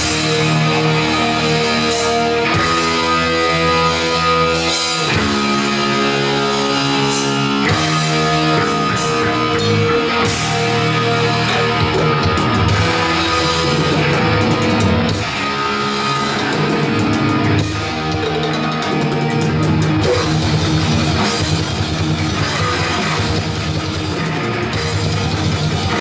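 Live rock band playing loud: electric guitars and a drum kit.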